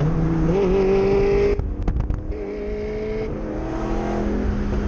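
Ford Mustang GT's 5.0 Coyote V8 running steadily through its cat-deleted exhaust. A few sharp clicks come about two seconds in.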